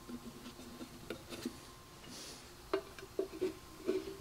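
Light clicks and taps of a screwdriver and screw at the drill press's round cover plate, a few scattered and then several close together in the second half, over a faint steady hum.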